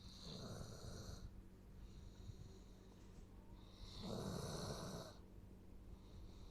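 Doberman snoring in its sleep: two louder snoring breaths, one at the start and one about four seconds in, with a fainter breath between them.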